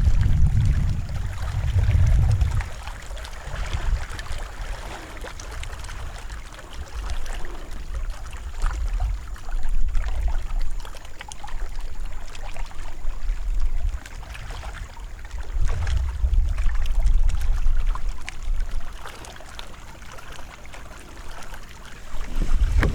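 Water lapping and trickling against a kayak hull, with gusts of wind buffeting the microphone as a low rumble near the start and again about two-thirds of the way through.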